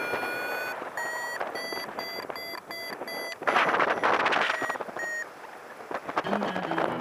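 Paragliding variometer beeping: a steady tone rising slightly in pitch, then a quick run of short beeps, about three a second, the vario's signal that the glider is climbing in lift. Wind on the microphone rushes underneath and is loudest about three and a half seconds in.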